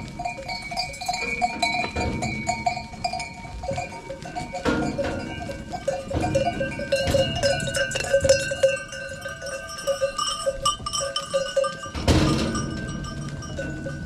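Livestock bells on a flock of sheep and goats jingling and clanking together, with a louder, sudden clatter about twelve seconds in.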